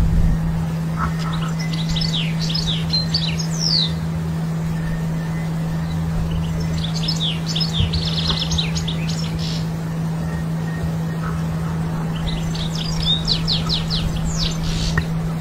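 European goldfinch singing: three bursts of quick twittering chirps and trills, each a few seconds long, with short pauses between. A steady low hum runs underneath.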